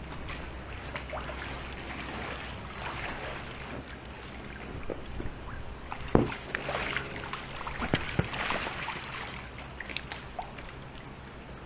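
Pool water splashing and lapping around an inflatable float as a person shifts his weight on it, with scattered short knocks, the sharpest about six seconds in.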